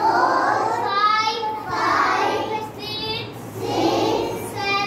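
A group of young children singing or chanting together in short rhythmic phrases, about one a second.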